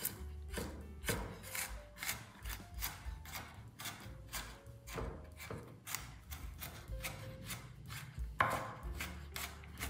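Knife chopping vegetables on a cutting board, uneven strokes about two or three a second.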